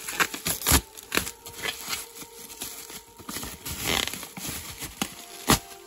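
A cardboard shipping box and its packaging being handled: scattered knocks, taps and rustles, with a sharper thump under a second in and another near the end.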